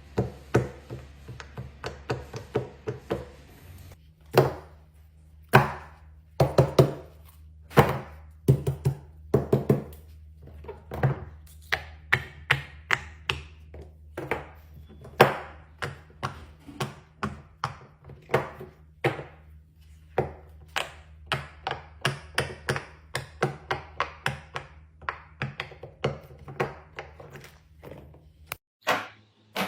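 Pop-it fidget toy being pressed and handled: a long run of short, sharp pops and taps, irregular and often several a second, over a low steady hum.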